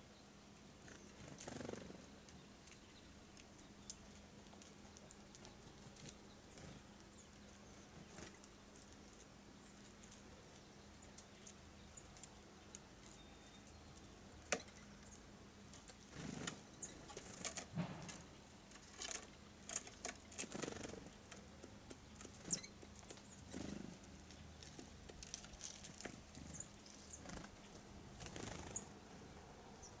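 Faint, scattered light taps and rustles of small birds at wooden and wire-cage feeders, sparse at first and busier in the second half, with a couple of sharper clicks. A faint steady hum lies underneath.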